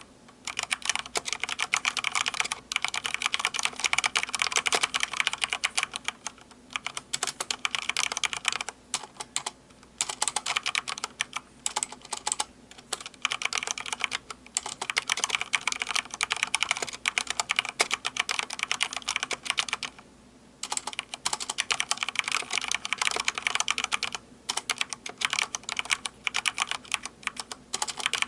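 Fast typing on a Corsair K70 Rapidfire mechanical keyboard with Cherry MX Speed switches: rapid streams of keystrokes in runs of a few seconds, broken by short pauses.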